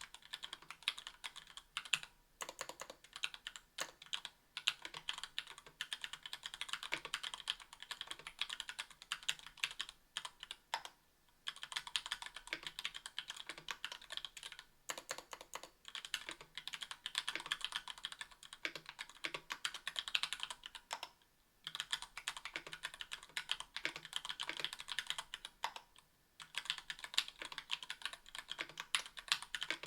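Fast typing on a 60% aluminium mechanical keyboard with linear Gateron Yellow Ink switches and GMK doubleshot keycaps: a dense run of keystroke clicks, broken by brief pauses a few times.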